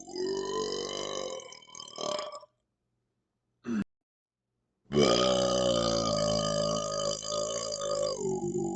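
A man's long, deep burps, driven by carbonation from chugged Pepsi. One runs about two and a half seconds, a short one comes near the middle, and a long one of about four seconds starts just past halfway, with dead silence between them.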